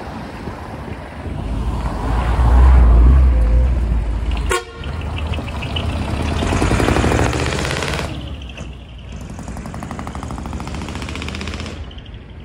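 Engines of decorated trucks pulling out and driving past close by: a heavy low rumble swells and fades twice, with a sudden sharp sound about four and a half seconds in. A steadier, lower engine sound from the next truck follows.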